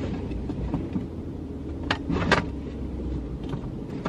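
Rummaging about inside a car: rustling and light clicks as things are moved, with two sharper knocks about two seconds in, over a steady low rumble.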